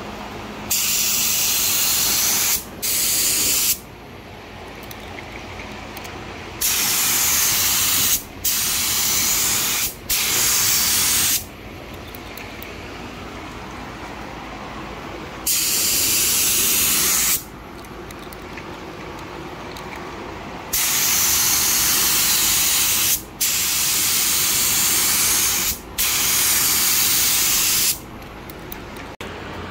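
Compressed-air paint spray gun spraying a pearl coat: trigger pulls giving loud bursts of hiss, each a second or two long, in runs of two or three passes with short breaks between.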